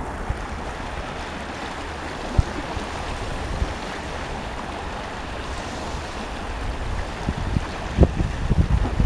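Sea waves washing steadily on the shore. Wind buffets the microphone in low thumps toward the end.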